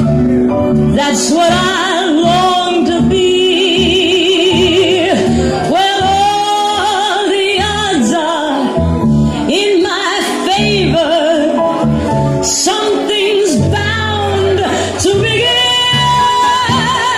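A song: a singer holding long notes with wide vibrato over an instrumental backing with a moving bass line.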